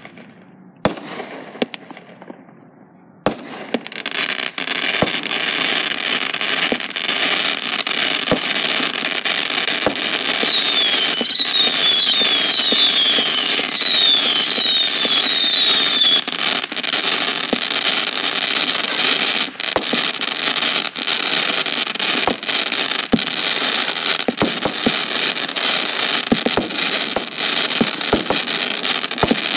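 Fireworks going off. A few sharp pops come in the first seconds, then from about three seconds in there is a continuous dense crackling with many sharp reports. Between about ten and sixteen seconds in, a run of whistles each falls in pitch.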